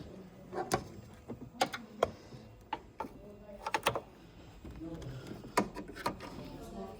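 A string of sharp clicks and light knocks at irregular intervals, about ten over several seconds, the kind made by handling hard parts or pressing switches.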